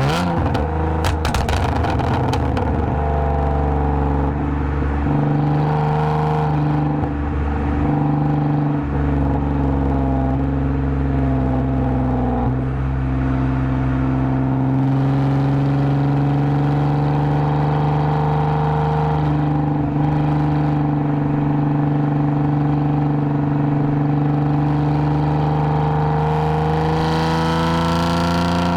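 2010 Lexus IS250 AWD's V6 sounding through a full aftermarket exhaust with valved mufflers, holding a steady drone while cruising, its pitch climbing gently near the end as the car speeds up.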